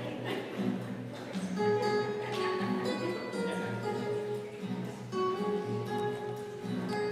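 Instrumental music led by an acoustic guitar: a run of held, plucked notes over a steady bass line.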